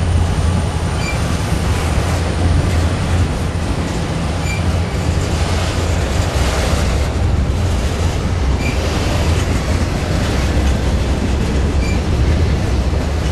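Several diesel freight locomotives working under load as the train slowly picks up speed, a steady deep engine rumble close by, mixed with the noise of wheels rolling on the rails.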